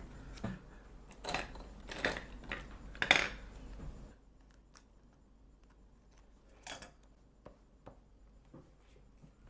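Quiet room with a few soft rustles and clicks from pens, markers and paper being handled on a wooden table, mostly in the first half, then one sharp click.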